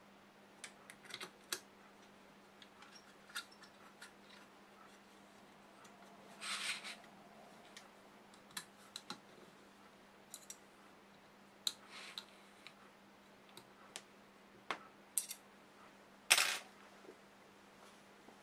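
Small clicks, taps and scrapes from hands handling and closing up a DQ542MA stepper driver's metal case on a bench. The clicks come scattered, with a brief scrape about six seconds in and a louder scrape near the end, over a faint steady hum.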